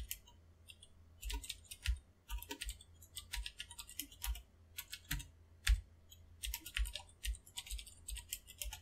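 Computer keyboard typing: quick keystrokes in irregular bursts with short pauses between them.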